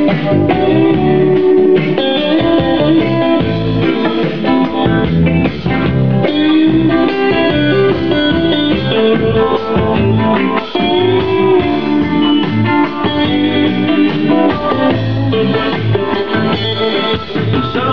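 Guitar-led music, with a bass line underneath, playing through a pair of Spendor SA3 studio monitor loudspeakers.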